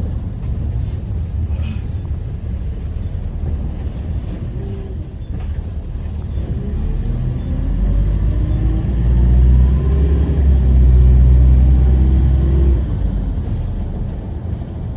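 Optare Solo Versa single-deck bus heard from on board: the engine rumbles steadily, then about halfway through it pulls away, its pitch rising with a high whine. It is loudest for a few seconds, then eases off suddenly near the end.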